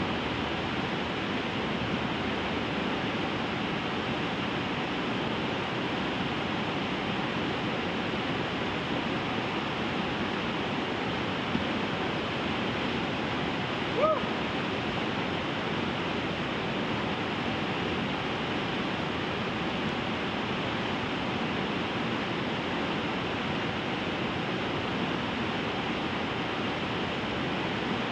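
Whitewater rapids of the River Glaslyn rushing steadily over rocks in a steep gorge. About halfway through, a single short, rising high-pitched call cuts in briefly over the water.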